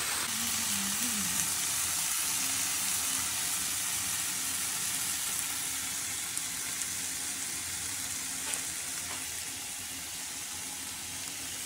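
Sliced bell peppers and onions frying in oil in one pan and chicken pieces browning in a second pan: a steady sizzle with a few faint spattering ticks.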